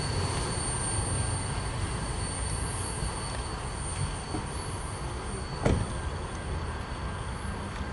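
Freight train rumbling past and slowly fading as its last cars go by, with one sharp knock near the end.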